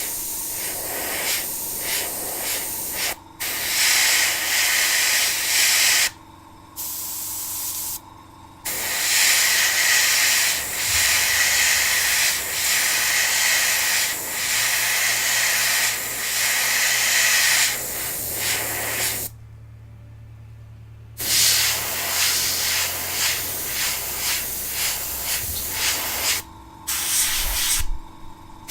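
Airbrush spraying paint: a steady hiss of air and paint, cut off and restarted several times as the trigger is released and pressed again, with pauses about three seconds in, from about six to eight and a half seconds, around nineteen to twenty-one seconds, and near the end.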